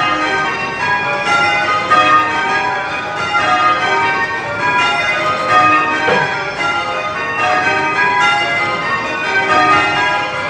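Church bells change ringing: a ring of bells struck one after another in an even, unbroken stream as the band rings spliced methods.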